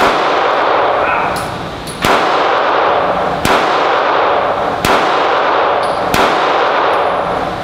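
Handgun shots in slow, steady fire, five of them about a second and a half apart, each with a long echoing ring off the enclosed concrete range, and light clinks between shots.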